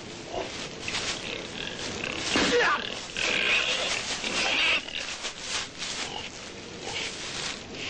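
An inobuta (wild boar–domestic pig hybrid) squealing and grunting. A loud cry falls in pitch about two and a half seconds in, and a long high squeal follows from about three seconds in to nearly five.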